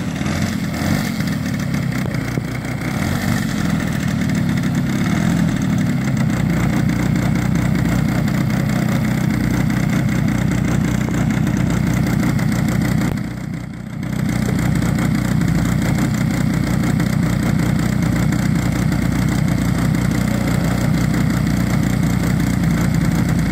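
The model aircraft's MVVS 152NP engine running steadily at idle, its propeller turning. The sound dips briefly about thirteen seconds in, then comes back at the same level.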